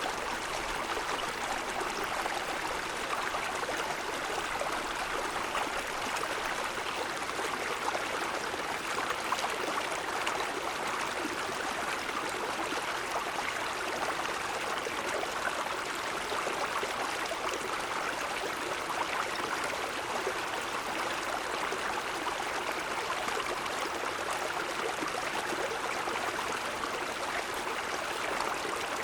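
Mountain stream running over snow-covered stones: a steady rush and babble of flowing water.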